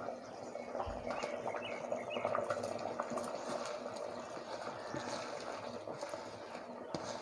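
Spiced water for chicken biryani at a full rolling boil in an open pressure cooker, bubbling steadily with small crackles: it is ready for the rice to go in.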